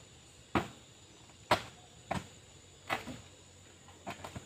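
A long iron bar (barita) striking bamboo poles to knock off the branch nodes. There are four sharp knocks about a second apart, then a cluster of lighter taps near the end.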